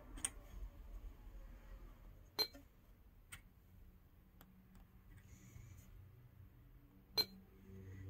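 Button clicks of a small push-button remote switch for a car head unit, pressed by finger: a few light ticks and two sharper clicks with a brief ring, one a little over two seconds in and one near the end.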